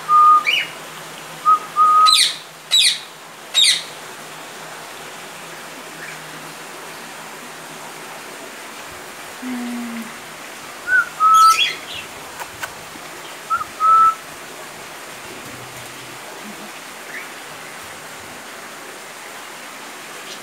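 Caged parrots calling: short whistled notes and sharp, harsh screeches, three screeches about two to four seconds in and a pair about eleven seconds in, with a few more whistles around fourteen seconds.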